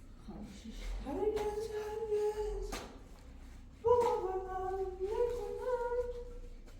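A high voice humming a tune in two phrases of held notes that step up and down in pitch, with a short click between them.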